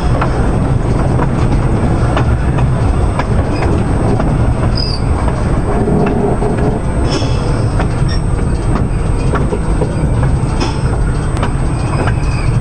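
Ex-New York City Transit R-30 subway car running along the track, heard from inside the car. A steady, loud rumble from the running gear, with irregular clicks of the wheels over the rail and a few brief high squeaks.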